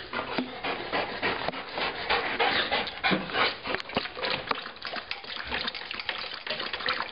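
Greyhound panting with quick, uneven breaths, worn out from running.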